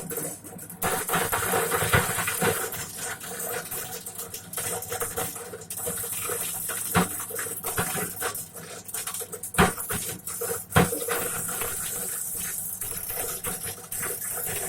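Corn sheller running: a steady machine hum under a rushing rattle of corn being threshed, with several sharp knocks along the way.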